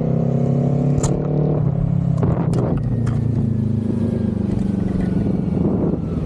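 Kawasaki Z400 parallel-twin engine and exhaust under way, the revs climbing slightly for about a second and a half, then dropping around two seconds in before running steady. A few sharp clicks come near one second and again about two and a half seconds in.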